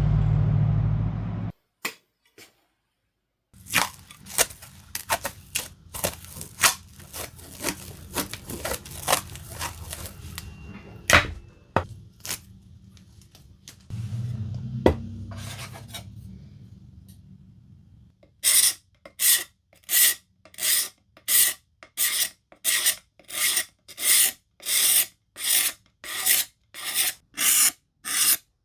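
Back-and-forth strokes of a hand abrasive tool working a wooden axe handle, steady at about two strokes a second in the second half. Before that come scattered clicks and knocks over a low hum.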